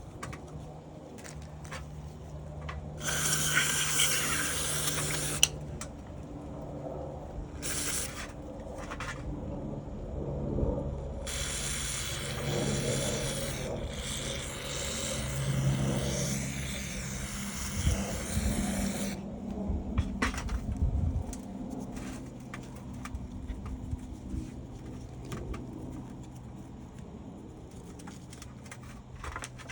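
Several hissing bursts from a pressurised jet: one of about two seconds, a brief one, then a long one of about eight seconds. A low steady hum runs underneath, with small clicks and handling noises.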